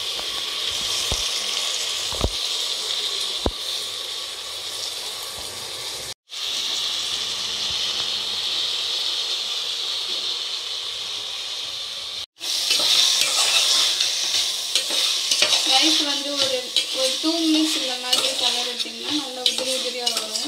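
Soaked basmati rice sizzling as it fries in oil and ghee with onions in a steel pressure cooker pan. About halfway through it gets louder, with a spoon scraping and clinking against the steel pot as the rice is stirred.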